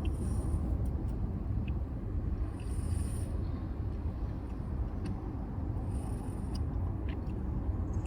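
Steady low rumble inside a car, with a few brief soft rustles.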